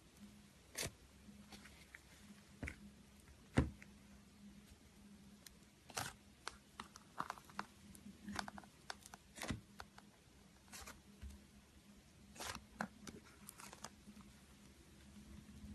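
Slime being squeezed and poked by hand, giving irregular sharp clicks and pops, sometimes several in quick succession.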